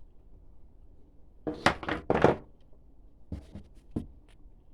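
Pressure washer accessories and their cardboard box being handled: a cluster of knocks and clatter about a second and a half in, then a few lighter knocks.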